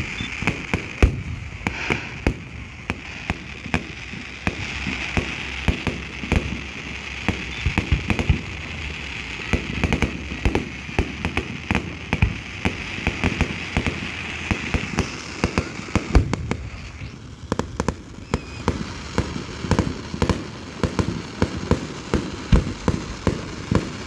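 Fireworks bursting in a dense barrage, many sharp bangs a second one after another. A steady high hiss runs underneath and stops about two-thirds of the way through.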